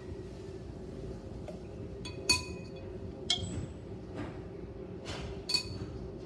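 Metal spoon clinking against a stainless steel pot while stirring: three sharp, ringing clinks, the first a little over two seconds in and the loudest, over a steady low hum.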